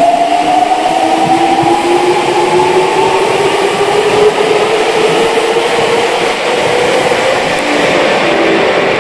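N3000-series subway train pulling out of an underground station: its traction motor whine climbs steadily in pitch as it accelerates, over the rumble of the wheels on the rails.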